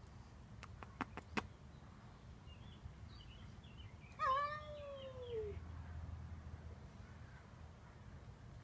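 Devon Rex cat giving one drawn-out, odd-sounding call about four seconds in, lasting just over a second and falling in pitch, after a few faint short chirps. A few sharp clicks sound in the first second and a half.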